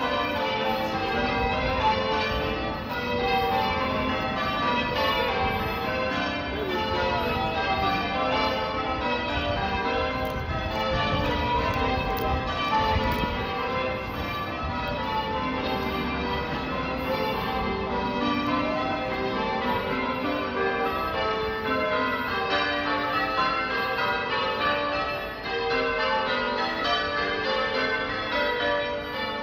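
Sacred Trinity Church's bells ringing: a steady, unbroken run of overlapping bell strokes, one bell after another.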